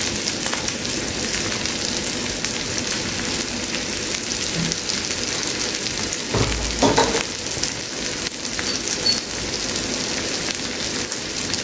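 Barbecue sauce sizzling in a saucepan of hot butter and sautéed onions and garlic, a steady crackling sizzle. One brief dull knock comes about halfway through.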